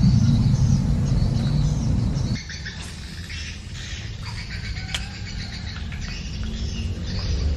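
Small birds chirping repeatedly over a loud low rumble that stops abruptly about two seconds in.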